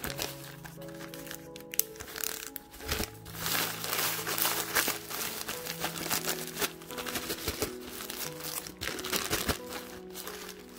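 Zip-top plastic bag crinkling and crackers crunching inside it as they are squeezed and kneaded by hand into crumbs, the rustling getting denser after about two seconds. Background music plays throughout.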